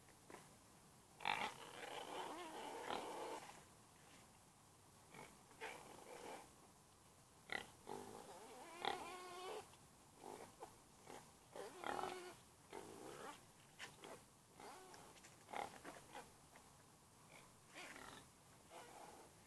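Domestic pig grunting in short, irregular bursts, with quiet stretches between.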